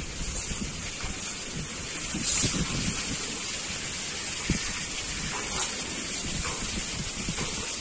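Soft grass broom sweeping a concrete street, a steady scratchy swishing that swells with the strokes.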